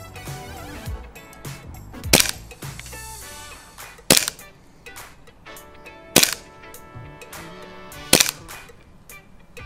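Instrumental music with a sharp crack every two seconds, four in all.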